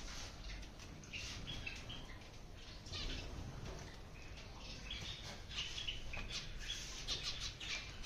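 Colony of zebra finches giving many short, overlapping chirping calls, busier toward the end.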